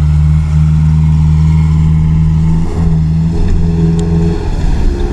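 Subaru Forester 2.5's flat-four engine held at steady high revs at full throttle, climbing a steep sand slope with the wheels spinning. About four and a half seconds in, the revs fall away to a lower note.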